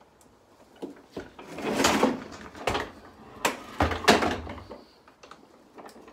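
Handling noise from assembling a lawnmower: irregular knocks and rustling as the plastic cable clip, power cable and handle frame are worked by hand. The loudest comes about two seconds in and again about four seconds in.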